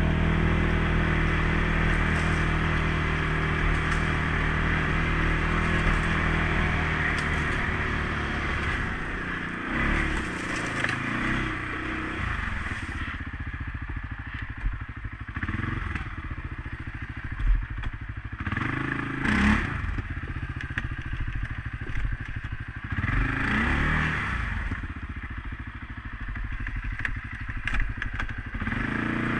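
CFMOTO CForce 500S ATV's single-cylinder engine running steadily on the throttle, then easing off and revving up and down several times. Clatter and knocks come through over the top.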